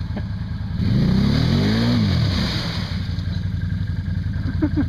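ATV engine idling, then revved up about a second in, its pitch rising and falling back over about a second and a half before settling to idle again, as the quad sits bogged down in deep mud.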